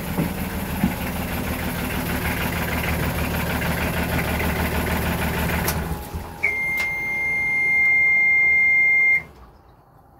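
Yanmar marine diesel engine running steadily, then shut down about six seconds in. Right after it stops, the engine panel's alarm buzzer gives one loud, steady high beep for about three seconds before cutting off.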